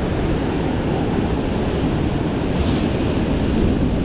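Ocean surf washing and breaking steadily on the shore, with wind buffeting the microphone.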